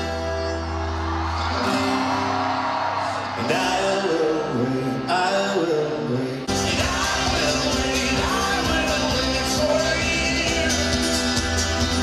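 A live band playing through a large outdoor PA with a singer, first over a held low note. About six and a half seconds in, the drums and full band come in and the music grows fuller and louder.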